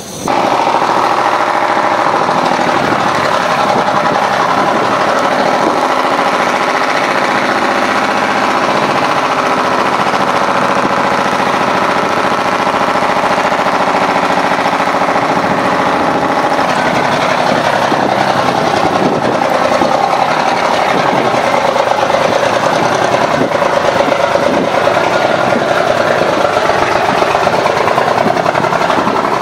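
Engine of a 1954 American LaFrance O-11A crash truck running as the truck drives slowly, a loud steady sound that comes in abruptly at the start.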